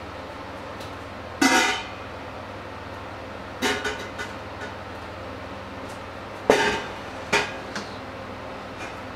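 Stainless steel pots and a metal pot lid clanking and ringing as they are handled and set down, in several separate knocks, the loudest about a second and a half in and near six and a half seconds, over a steady low hum.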